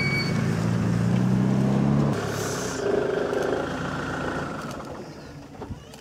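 Safari vehicle's engine idling with a steady low hum. About two seconds in the hum changes and thins, then slowly fades away.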